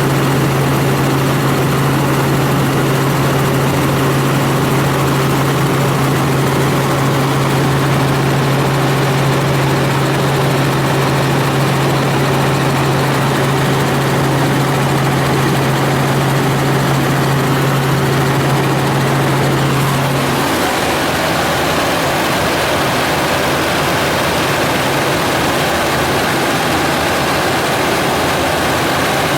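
Helicopter in flight, heard from inside the cabin: a loud, steady engine and rotor drone with a low hum. The hum stops abruptly about two-thirds of the way through, leaving an even rushing noise.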